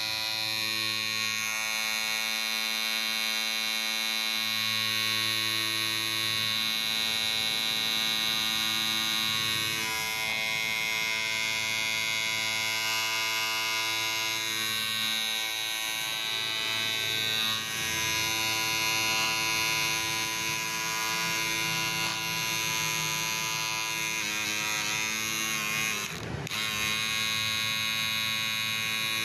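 Electric hair clipper running continuously with a steady, high-pitched buzz; its tone shifts a little several times, with one brief dip about 26 seconds in.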